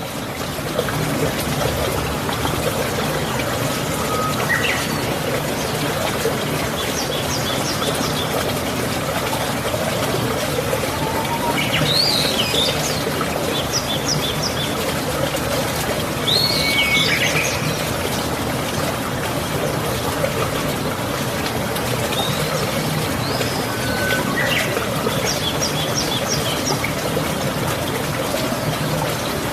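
Steady rush of running water, with birds chirping in short bursts of quick high notes and whistles every few seconds.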